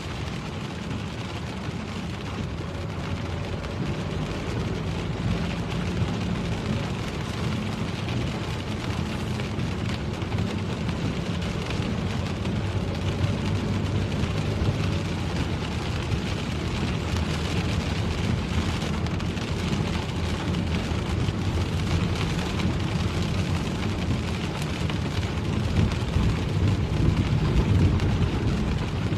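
Steady low rumble of a car driving on rain-soaked roads, heard from inside the cabin: engine and tyre noise with a hiss of rain and wet road. It grows a little louder near the end.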